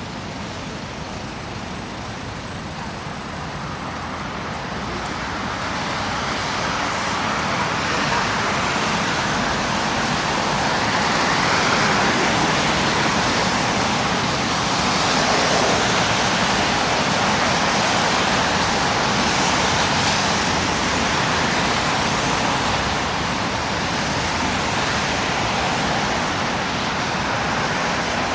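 Road traffic passing on a city street, a steady rush of tyre and engine noise that grows louder over the first several seconds and then holds.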